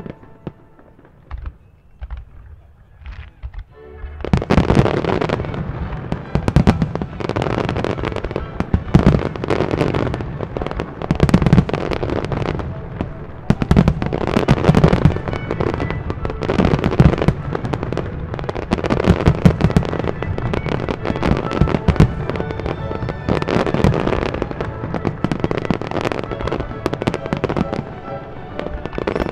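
Fireworks display: a few scattered pops, then about four seconds in a dense barrage of shell bursts and crackling begins and keeps going, with orchestral music faintly beneath.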